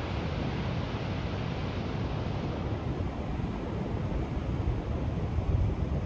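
Ocean surf breaking and washing up the beach in a steady rush, with wind buffeting the microphone.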